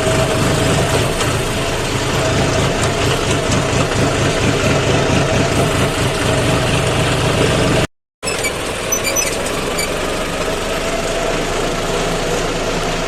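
Diesel tractor engine running steadily, with a brief dropout to silence about eight seconds in.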